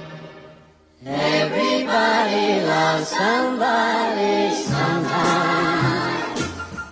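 Background music: a track fades out, then a song with choir-like singing starts about a second in.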